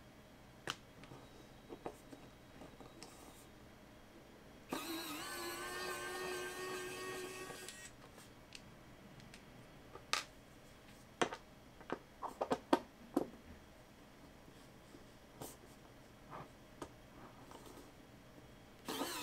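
Small electric precision screwdriver whirring for about three seconds as it backs a screw out of a hard drive's metal cover, and starting up again just before the end. In between come a run of light, sharp metallic clicks of tiny screws being set down.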